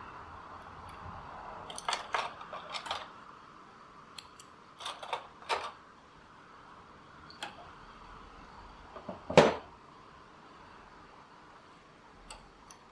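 Scattered light metallic clicks and taps from a Brother knitting machine's needle bed and gate pegs as the last row is bound off with a hand tool and the knitted piece is handled and lifted off the pegs. One louder knock comes about nine seconds in.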